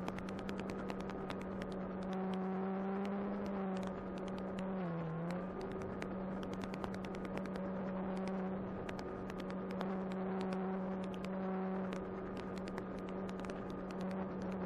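Electric motor and propeller of an E-flite Apprentice 15e RC airplane running at a steady pitch, dipping briefly about five seconds in, with frequent sharp clicks throughout.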